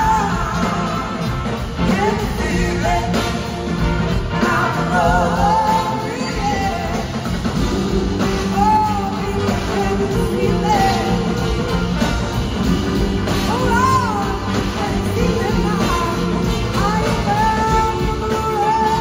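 Live rock band playing, with a woman singing lead over electric guitars and drums, recorded from the audience in a large hall. A long held note comes in near the end.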